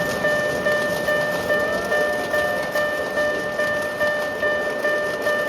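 Japanese railway level-crossing alarm (fumikiri warning bell) on a miniature railway, ringing steadily at about two strikes a second, each strike fading before the next.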